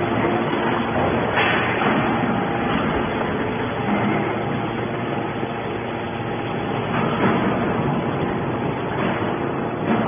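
TCM hydraulic scrap metal baler running steadily, its hydraulic power unit droning as the ram pushes a compressed bale of metal scrap out of the chamber, with a few knocks along the way.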